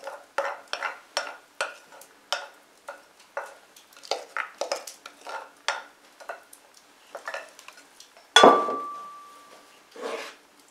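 A spoon scrapes and taps against a glazed earthenware bowl in quick strokes, two or three a second, scooping out a wet cornmeal-and-rye sponge. About eight seconds in there is one loud clunk with a short ringing tone as the earthenware bowl is set down.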